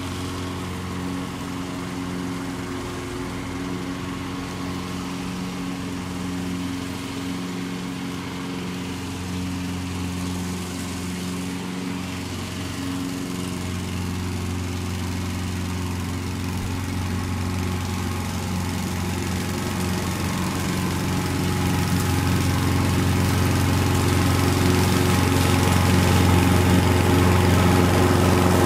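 A Honda HR 214 lawn mower's 118 cc Honda GXV120 four-stroke single-cylinder engine runs at a steady speed with its blade spinning. It grows louder through the second half as the mower comes up close.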